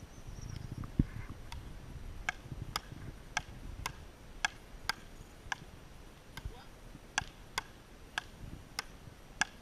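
Frescobol rally: wooden paddles striking the rubber ball back and forth, a sharp hollow pock about every half to two-thirds of a second, around fourteen hits. A single low thump about a second in is the loudest sound.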